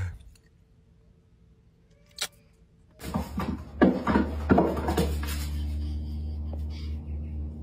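Near silence for about three seconds, broken by one sharp click. Then a baby goat's hooves clatter and knock on a wooden board for about two seconds, followed by a steady low hum.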